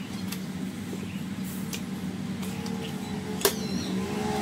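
Steady low background hum with faint taps and one sharp click about three and a half seconds in, from hands handling a tablet on a work mat.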